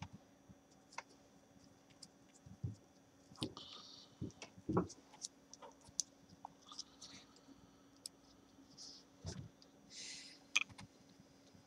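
Small, irregular clicks and taps of a screwdriver and screws against a laptop's plastic and metal screen frame during screen reassembly. A few louder knocks come around the middle, and there is a short rustle near the end.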